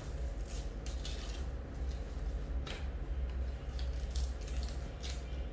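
Velcro straps of a trolley bag being wrapped and pressed around the frame's lower bar: a few short, scattered rasps and fabric rustles, over a steady low hum.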